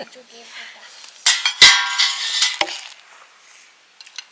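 Steel dishes clattering: a loud burst of metal plates and bowls knocking and ringing against each other about a second in, with a few sharp knocks, dying away by about three seconds.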